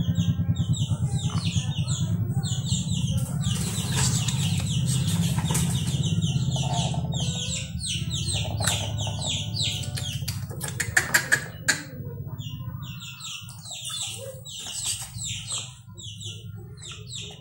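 A chicken being held and dosed, with a scuffle of wing flaps and clicks about ten seconds in. Clucking and high bird chirps repeat throughout over a steady low hum.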